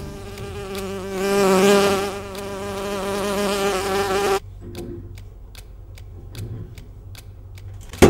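A housefly buzzing around, its pitch wavering up and down, stopping abruptly a little over halfway through. Faint regular ticks follow, about three a second.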